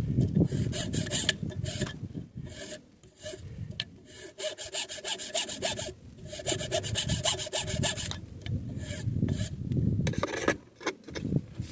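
Hand filing on a Glock trigger part: quick back-and-forth rasping strokes in several runs with short pauses between them, sped up to double speed.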